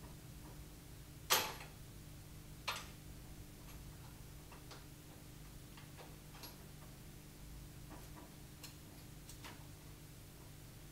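Faint handling clicks and taps as cardboard protector sheets are pulled off a mini tiller's handlebars, with two sharper knocks about a second and a half in and again just under three seconds in.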